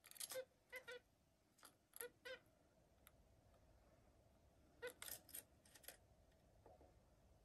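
Zebra finches giving short calls in quick groups of two or three: a group right at the start, more about a second and two seconds in, then a pause before another group around five seconds in.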